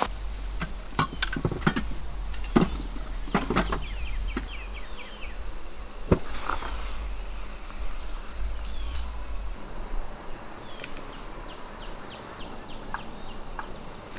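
Insects trilling steadily on one high note, with scattered clicks and knocks of camp gear being handled in the first few seconds and a few light ticks near the end.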